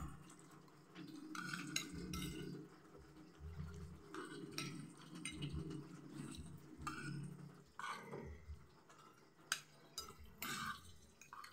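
A spoon and a fork clinking and scraping against a ceramic plate of cooked vegetables, in scattered light clicks, with soft chewing in between.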